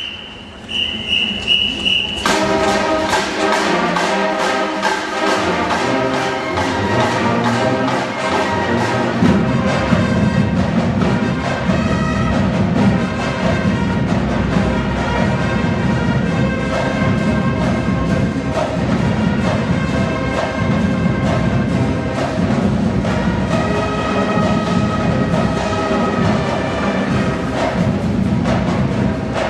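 High school marching band playing loud brass and percussion music. A brief high tone sounds first, the full band comes in about two seconds in, and the low end fills in from about nine seconds.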